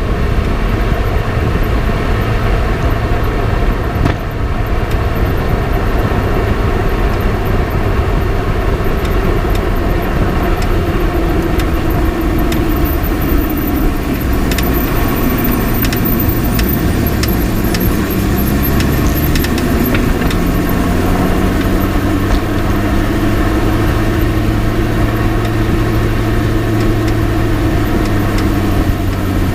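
Driving noise heard from a camera mounted on a Lotus Elise's front left suspension: steady tyre and road rumble, with the engine note slowly rising and falling. A few faint sharp clicks come through in the middle stretch, the kind of clicking the owner is trying to trace in the front left suspension.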